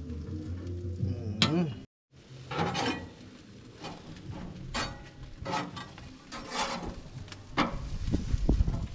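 Music that cuts off about two seconds in. Then a metal spatula scrapes and knocks on a barbecue grill grate in repeated strokes about a second apart, while chicken sizzles on the grill.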